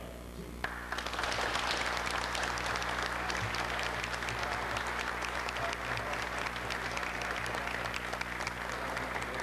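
Audience applauding: many hands clapping, starting about a second in and keeping up steadily.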